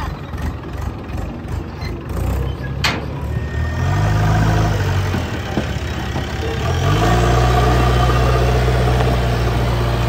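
Diesel engines running: a farm tractor's engine revs up briefly about four seconds in, then the JCB 3DX backhoe loader's engine rises in speed just before seven seconds and holds there. A single sharp knock comes about three seconds in.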